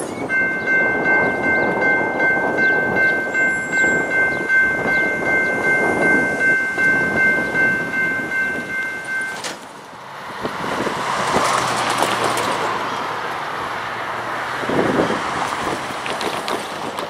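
Locomotive air horn sounding one long steady chord of several notes for about nine seconds, then cutting off suddenly, over the pulsing rumble of a passing train. After the horn stops, the train rolls by with a swelling rushing noise.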